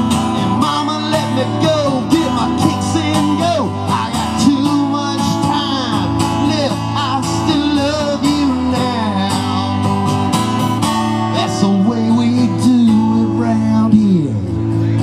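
Steel-string acoustic guitar strummed in a steady rhythm, with a man's voice singing over it.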